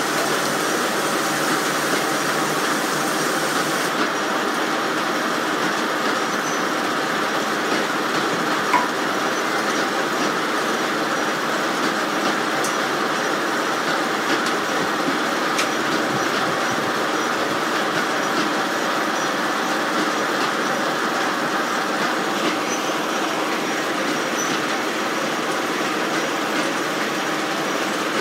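Reeves circular sawmill running steadily, its large saw blade and drive turning without change in pace, with one sharp click about nine seconds in.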